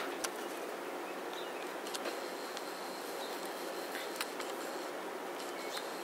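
Steady background hiss with a few soft clicks scattered through it, a couple of faint short bird chirps, and a thin, steady high tone that holds through the second half.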